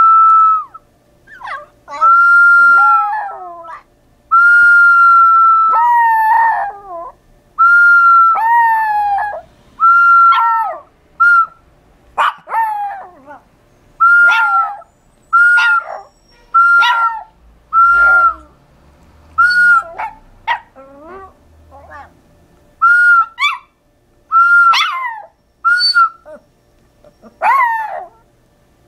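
A high whistled note, at first held for a second or more and later repeated in short blasts about once a second, with a small dog howling along: its cries slide down in pitch around each whistle.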